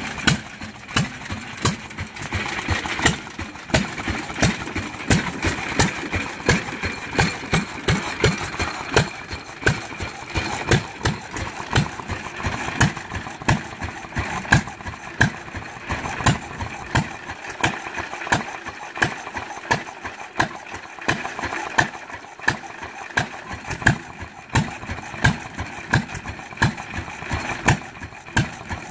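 Two antique hit-and-miss stationary gas engines, a 3 hp Fairbanks-Morse Z and a 2 hp Novo, running together. Their firing strokes give a steady run of sharp exhaust pops, about two a second.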